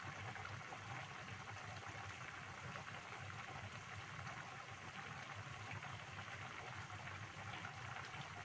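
Chicken-feet vegetable soup boiling in an open pan on a gas stove: a steady bubbling crackle over a low hum.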